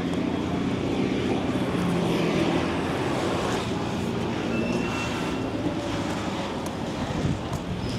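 Street traffic: a motor vehicle's engine running with a steady low hum under road noise, loudest about two seconds in.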